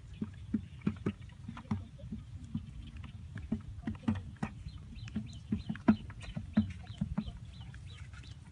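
Footsteps and knocks on a dirt path, irregular, two or three a second, the loudest a sharp knock about six seconds in, over a low steady rumble.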